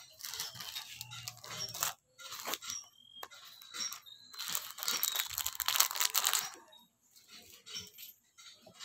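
Clear plastic packets crinkling and rustling as they are handled, in several bouts, the loudest lasting about two seconds in the middle.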